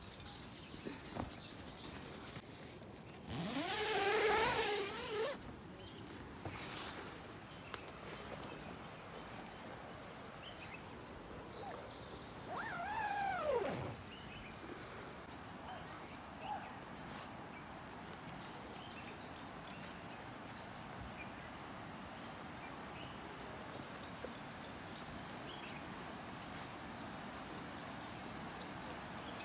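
Riverside morning ambience: a steady rush of water from the Nile rapids, a constant high insect drone, and short bird chirps repeating over it. Twice, a few seconds in and about 13 seconds in, a louder call rises then falls in pitch.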